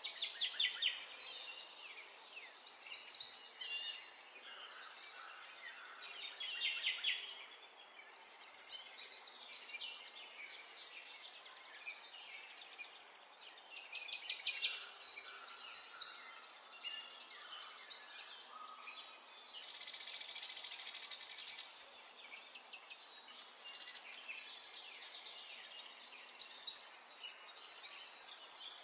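A songbird singing in repeated phrases of high, very fast trills, each a second or two long with short pauses between. The longest phrase, with a steadier ringing note, comes about two-thirds of the way through.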